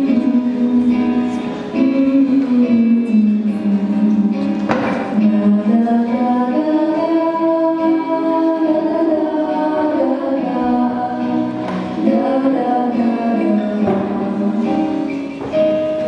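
A female vocal group of four singing together into microphones over instrumental accompaniment. Near the end the voices stop and the accompaniment plays on.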